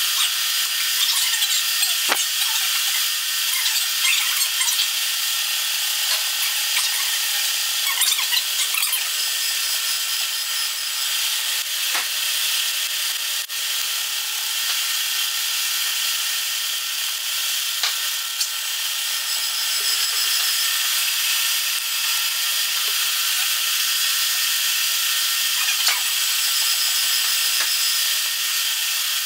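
Induma horizontal milling machine running under power feed, its single-point HSS fly cutter cutting a tooth slot into a solid brass blank: a steady, loud cutting hiss over a faint machine hum, with a couple of sharp ticks.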